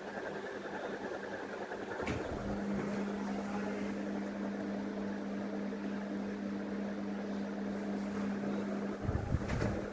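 ABC 48-inch ceiling fan running with a steady whir. A click about two seconds in brings a strong, steady electrical hum that lasts until about nine seconds in, when low rumbling thumps and another click take over.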